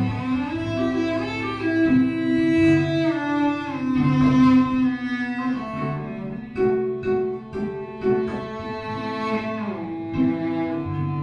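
Solo cello played with the bow: long sustained notes that move from pitch to pitch every second or so, with a low line sounding under the higher ones.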